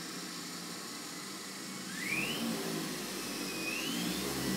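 3D-printed Halbach-array brushless motor driven by a hobby ESC, running with a steady whir. About two seconds in it gets louder and a thin whine rises in pitch, and the whine rises again near the end as the speed is turned up.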